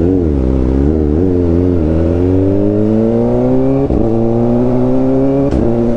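Kawasaki Ninja ZX-4RR's inline-four engine running through an SC Project slip-on exhaust. The engine note wavers up and down for the first two seconds, then climbs steadily in pitch, with two brief breaks about four and five and a half seconds in.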